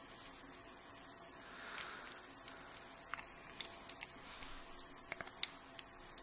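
Faint, scattered small metallic clicks and taps of a thin steel tool working inside a Kwikset lock cylinder housing to push out a shim pin, a dozen or so, most in the second half, the sharpest near the end.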